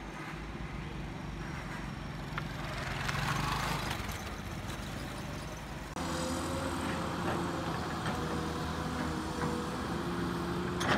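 Kobelco crawler excavator's diesel engine running steadily while it digs mud with its bucket, with a few sharp knocks. The sound changes abruptly about six seconds in.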